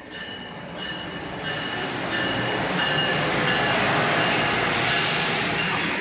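Amtrak Acela Express electric high-speed train running through a station at speed: a rushing of wheels on rail and air that builds as the power car arrives, stays loudest while the power car and coaches sweep past, and starts to fall away at the very end.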